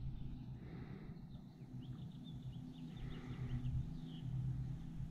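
A steady low hum throughout, with a soft swish every two to three seconds as a magnet-fishing rope is hauled up hand over hand through gloved hands. Faint high chirps come in the middle.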